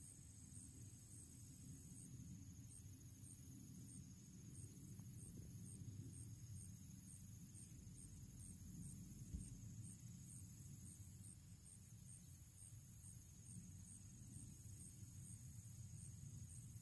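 Faint late-summer insect chorus: a steady high hum with a regular high chirp about two to three times a second, over a low rumble of wind noise.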